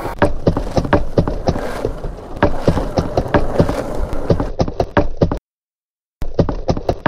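Rapid, uneven tapping or knocking clicks, several a second, over a low rumble. They cut off abruptly about five seconds in, come back for about a second near the end, then cut off again.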